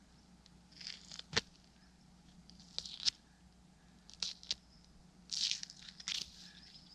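Hunting knife cutting into a red deer's flank hide and tissue during field dressing: a series of about six short slicing and scraping strokes, a few with a sharp click.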